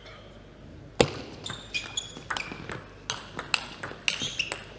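Table tennis rally: the plastic ball strikes paddles and table in quick, irregular succession. About a dozen sharp clicks with short ringing tails start about a second in.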